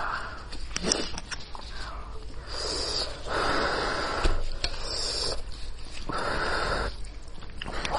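Close-miked eating sounds from a person eating spicy sheep's head: scattered wet chewing and smacking clicks, and three long breathy draws lasting about a second each.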